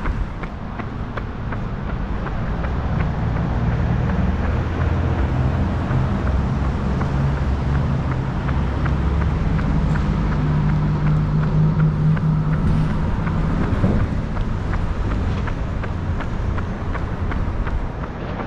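A runner's footfalls, an even run of short steps, over the low engine rumble of passing road traffic that grows louder toward the middle and then eases off.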